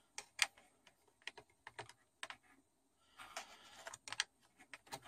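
Light clicks and taps of a USB cable's plug against the side of a laptop as it is fumbled into the USB port, with a stretch of scraping a little after three seconds in.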